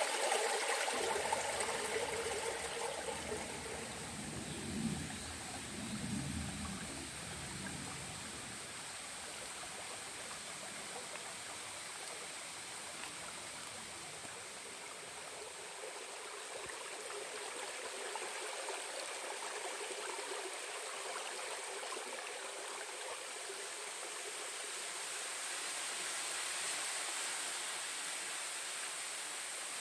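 Mountain stream rushing and splashing over rocks in a steady flow. A thin, steady high whine runs above the water and grows stronger near the end. There is some low rumbling in the first several seconds.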